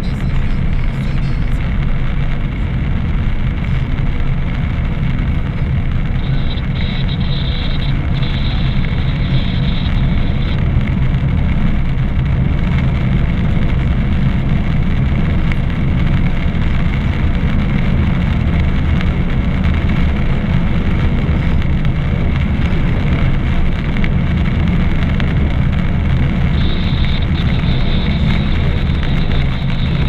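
Car driving on a wet road, heard from inside the cabin: a steady engine hum under constant road and tyre noise.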